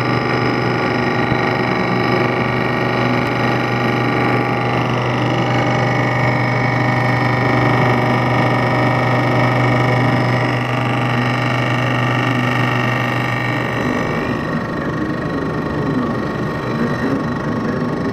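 Milling machine running at about 1400 RPM, cutting aluminum, with a steady hum and several steady whining tones. The low hum drops away about 14 seconds in while the higher whine carries on.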